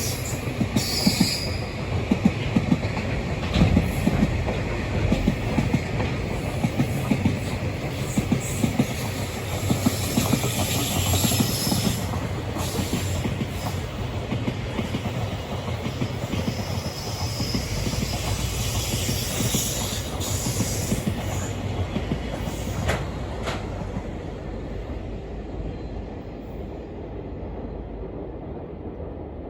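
Long freight train rolling past, its wheels clattering steadily over the rail joints, with the sound dying away over the last few seconds as the train moves off.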